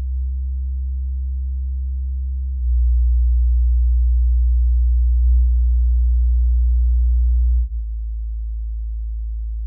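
Bass test: steady low sine tones played through a small 5-inch studio monitor. The tone changes in steps about two and a half seconds in and again near eight seconds, and the middle tone is the loudest.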